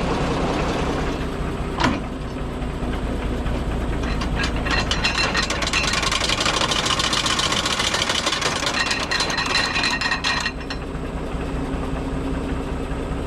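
Tractor engine running steadily. About four seconds in, the mower's cutterbar is engaged and spins with a loud whirring clatter for about six seconds, then stops. After a rock strike, one knife is hitting and catching at one spot as it turns.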